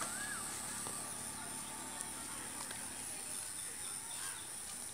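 Steady high insect drone with a bird's short rising-and-falling whistled calls, one just after the start and another about four seconds in.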